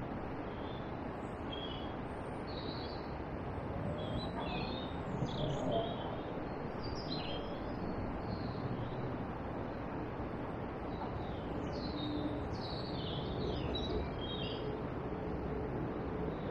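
Small birds chirping and twittering in short, quick calls, busiest twice, over a steady background hiss.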